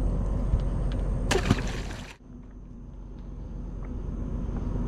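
Steady low rumble with a short splash about a second and a half in, as a gafftopsail catfish is released back into the river. The rumble drops quieter just after.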